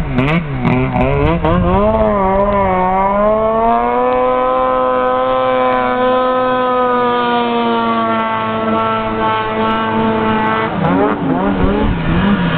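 Arctic Cat F7 snowmobile's two-stroke engine revving hard. The pitch wavers as the throttle is worked for the first couple of seconds, then climbs and holds a long, steady high-rev note while the sled skims across open water at full throttle. Near the end the pitch wavers again.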